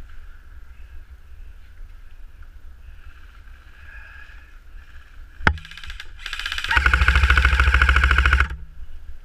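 Airsoft rifle firing on full auto, muffled: a single sharp crack, then a short burst, then a louder rapid burst lasting nearly two seconds. The sound is dulled by the GoPro's waterproof housing.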